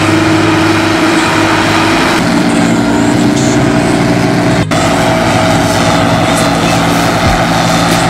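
Arbos 705 AL combine harvester running steadily at work, its engine and threshing machinery making a loud, even hum, with a brief dropout a little past halfway.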